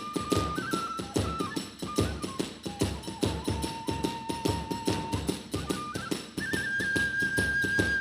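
Kagura hayashi music: a bamboo transverse flute holding long notes that step between a few pitches, over a fast, steady beat of drums and small hand cymbals.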